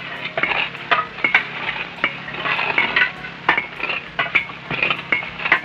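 Dishes and cutlery clattering and clinking in a rapid, irregular series of sharp knocks, on an early sound-film soundtrack with a steady low hum.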